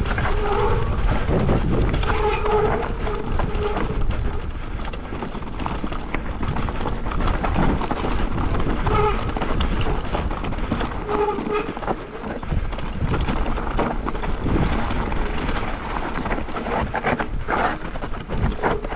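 Mountain bike descending a rough rocky trail: tyres crunching and knocking over rocks and gravel, with the bike rattling in dense, uneven clatter over a low rumble.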